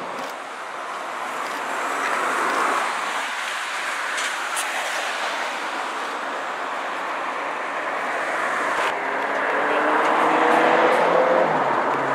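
Road traffic going by: a steady wash of tyre and engine noise that slowly grows louder, with a vehicle's engine note rising in pitch as it accelerates over the last few seconds.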